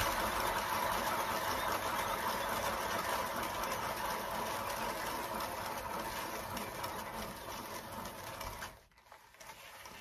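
Hand-spun turntable carrying a round painting board, its bearing whirring steadily as it spins, then fading as it slows and dropping away about nine seconds in.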